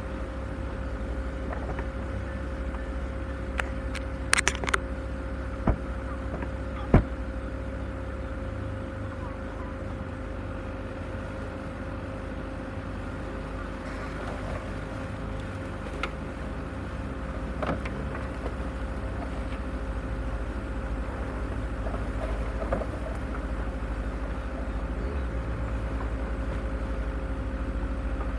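Off-road vehicle running steadily at low speed over a rough trail: a constant low rumble with a faint steady hum, broken by several sharp knocks and clicks, the loudest about seven seconds in.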